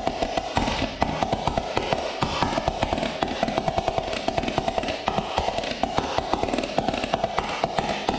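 Homemade 1 1/4-inch pipe pulse detonation engine running: a rapid, uneven stream of sharp explosive pops over a steady drone.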